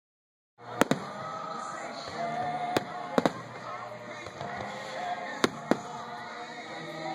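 Fireworks going off: about seven sharp bangs, several in quick pairs, over music playing in the background.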